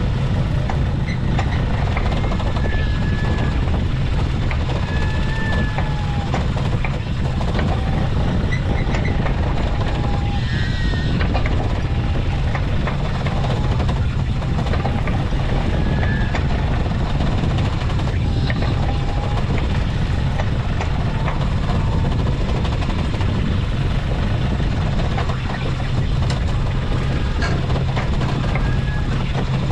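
Small fishing boat's engine running with a steady low drone while the crab pot line is hauled aboard. Short high squeaks come and go over it.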